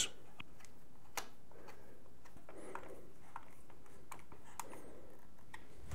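A few faint, scattered clicks and soft handling sounds of a screwdriver tightening the AIO pump block's mounting thumb screws, over a steady low hiss.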